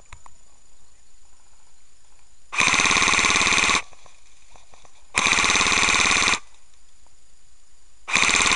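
An airsoft gun firing on full-auto: three bursts of rapid shots, the first two lasting about a second each and a short third one near the end.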